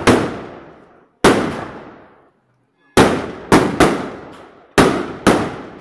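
Firecrackers exploding in a quick, irregular series: about seven sharp, loud bangs and one fainter one, coming closer together after the first few. Each bang trails off over about a second as it echoes between the buildings.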